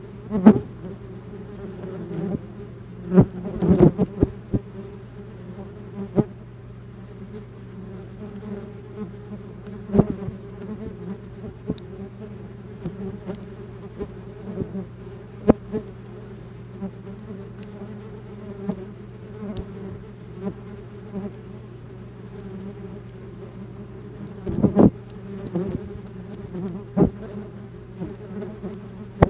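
Wasps buzzing in flight close to the camera, a steady hum, broken several times by sharp taps as wasps hit the camera housing, loudest about three to four seconds in and again near the end.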